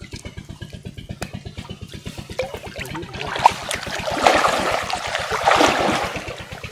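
A small engine runs steadily with an even low beat throughout. From about two and a half seconds in, water splashes and churns loudly for around four seconds, then dies down.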